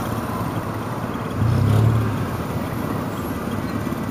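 Steady road-vehicle engine and traffic noise, with a louder low rumble swelling for about half a second around a second and a half in.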